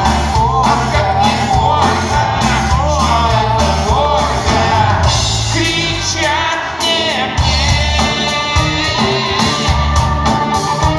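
Music: a song with a singer holding wavering notes over a pulsing bass beat, the bass dropping out briefly past the middle.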